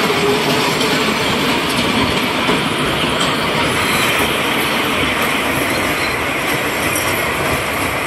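Kiddie roller coaster train of worm-shaped cars running along its steel track as it passes. The wheel noise is steady and eases slightly near the end.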